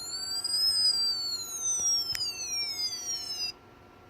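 Electronic siren wail from a 1984 Matchbox Light and Sound toy car's battery-powered sound unit, now working on fresh batteries. One slow, high-pitched sweep rises to a peak about a second in and then falls, with a short click about two seconds in. The sound cuts off suddenly near the end.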